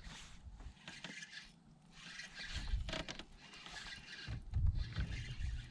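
Uneven low rumble on a boat-mounted camera's microphone, with brief swishes and scrapes from fishing rods and reels being cast and worked.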